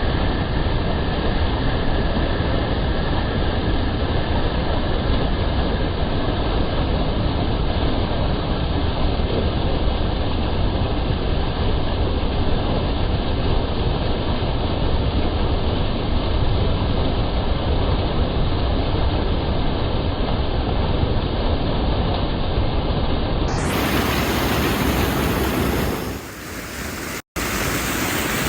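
Steady rushing of a small waterfall, a constant hiss of falling water. Near the end it turns suddenly brighter, with a brief break just after.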